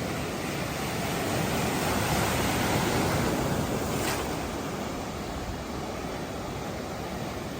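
Sea waves breaking and washing up on a beach: one wave swells over the first few seconds and eases off about halfway through.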